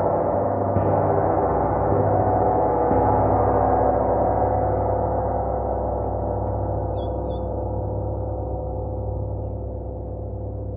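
Gong ringing in a dense, shimmering wash of many overlapping tones. It is lightly struck again about one second in and about three seconds in, then slowly fades.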